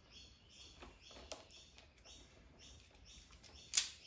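Quiet handling of a self-adjusting wire stripper and battery wire, with a single sharp click near the end as the tool is picked up. Faint high chirps repeat a few times a second in the background.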